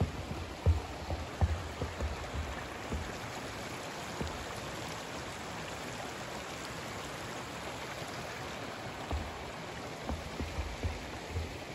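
A hiker's footsteps, thudding at walking pace over a steady rushing noise; the steps stop for several seconds in the middle and start again near the end.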